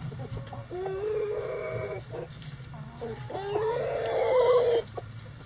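Chickens calling: two long, drawn-out calls about two seconds apart, the second louder and rising before it cuts off sharply.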